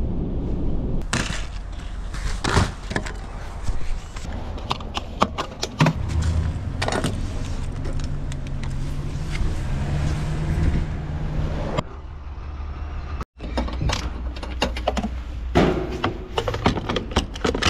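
Van running, a steady low rumble with repeated knocks, clatters and rattles over it; the sound breaks off sharply a little past thirteen seconds and resumes.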